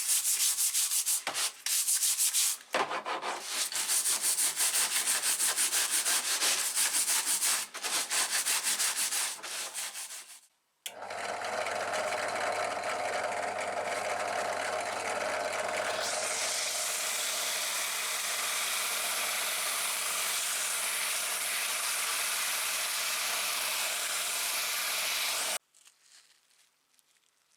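Rapid back-and-forth sanding or rubbing strokes for about ten seconds. After a brief pause, a small electric tool runs steadily for about fifteen seconds, then stops suddenly near the end.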